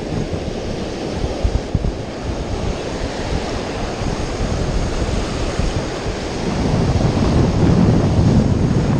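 Ocean surf breaking and washing around a wader's legs, with wind buffeting the microphone. The wash grows louder about two-thirds of the way through.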